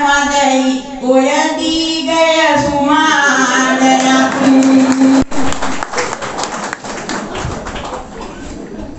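A woman's voice singing an improvised Sinhala kavi verse into a microphone, ending on a long held note that stops sharply about five seconds in. The audience then breaks into applause, which fades near the end.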